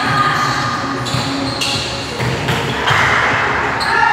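Volleyball being struck during a rally: two sharp hits about a second apart on an indoor court.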